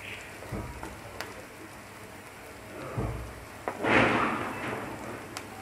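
Sliced onions sizzling in hot oil in a frying pan as they are fried toward brown, stirred with a spatula. A few low knocks, and about four seconds in the loudest part, a short rush of frying and scraping as the onions are turned.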